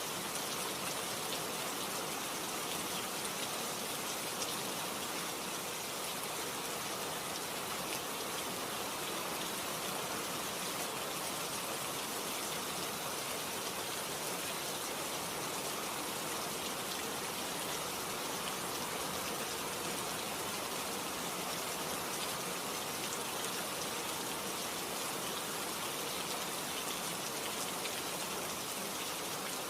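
Steady rain falling, an even hiss of many drops on surfaces.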